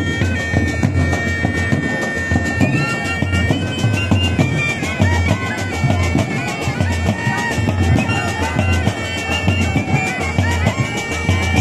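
Loud band music: a piercing reed or pipe melody in long held notes that step up and down, over dense, fast drumming with a heavy low beat.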